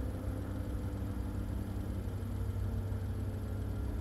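Steady low engine rumble with a few steady hum tones, unchanging throughout.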